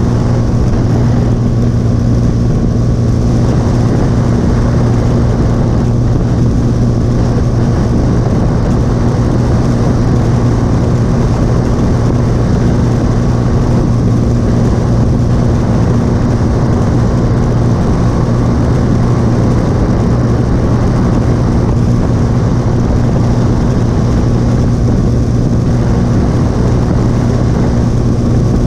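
Motorcycle engine running at a steady cruising speed, holding one even pitch with no revving or gear changes, over steady wind and road rush.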